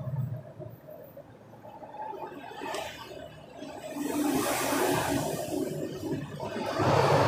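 Aerosol cleaner sprayed onto a dirty motorcycle throttle body in hissing bursts, with the liquid splashing off the part: a short burst about three seconds in, a longer one from about four to six seconds, and another near the end.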